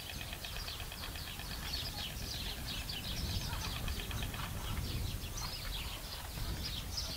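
Many small birds chirping and twittering in quick, overlapping short calls, over a low steady rumble of background noise.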